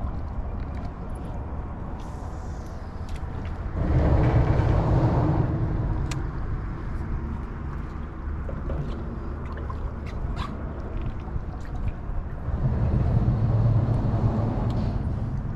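Road traffic crossing the bridge overhead: a steady low rumble that swells twice as vehicles pass, about four seconds in and again near the end, with scattered faint clicks.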